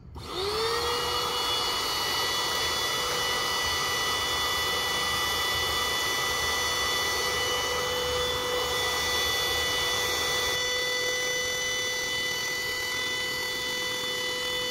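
Built-in electric air pump of a Mr. Young queen-size air mattress switching on and inflating it: a brief rising whine as the motor spins up, then a steady, even hum as air is pushed into the mattress.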